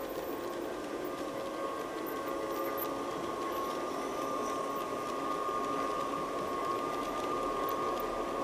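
Garden-scale model electric locomotive running past with a train of passenger coaches: a steady whine from its motor and gearing over the noise of the wheels on the rails, growing a little louder in the second half.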